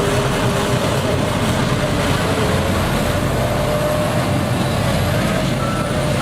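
Heavy construction machine's engine running steadily under load, with a reversing alarm beeping in short repeated tones near the end.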